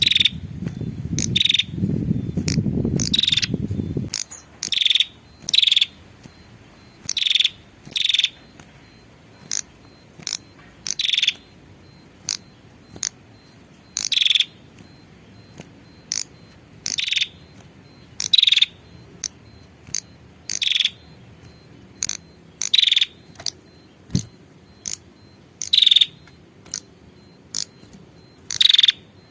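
Female prinia (prenjak) giving short, sharp chip calls, one roughly every second at an uneven pace, as a lure call to draw in males. A low rumble sits under the first few seconds.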